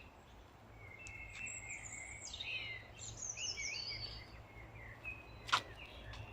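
Songbirds singing: a run of quick, varied chirps and trills from about one second in to about three and a half seconds, over a low steady hum. A single sharp click about five and a half seconds in.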